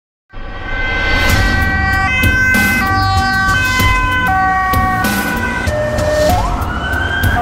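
Emergency vehicle sirens start abruptly after a moment of silence. Several overlapping siren tones step back and forth between fixed pitches, then about six seconds in a wail siren rises in pitch.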